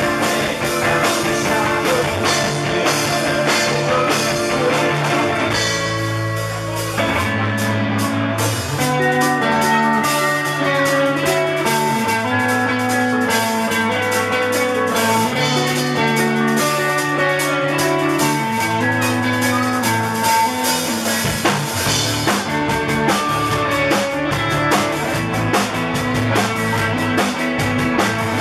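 Live rock band playing an instrumental passage with guitar and drum kit. The drums drop out for a moment about six seconds in, then come back in.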